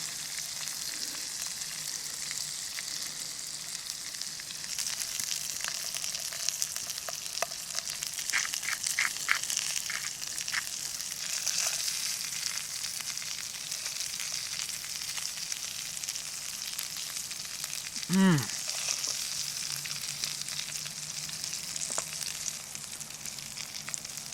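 Brown trout frying in bacon fat and butter, with a steady sizzle throughout. Near the end comes a brief loud falling sound, like a voice.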